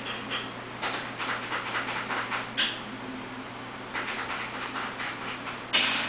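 A computer mouse dragged across the desk in short scratchy strokes while drawing, in two runs of strokes, the loudest near the end. A steady low hum runs underneath.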